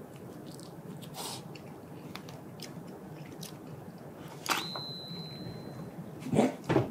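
A person chewing and slurping a mouthful of yakisoba noodles. About four and a half seconds in, a high steady tone comes in and holds for about a second and a half, and near the end there are two loud, short sounds.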